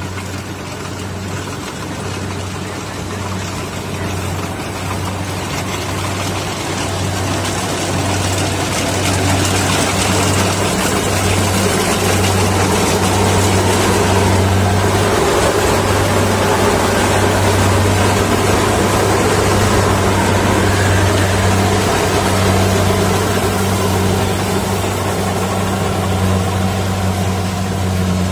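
Rice combine harvester running steadily as it cuts rice, its engine giving a constant low hum under the clatter of the machinery. It grows louder toward the middle as the machine comes close.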